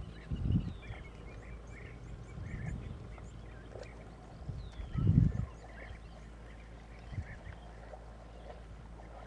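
Wild birds calling in the bush: many short, scattered chirps and two clear falling whistles. Low rumbles come through about half a second in and, louder, about five seconds in.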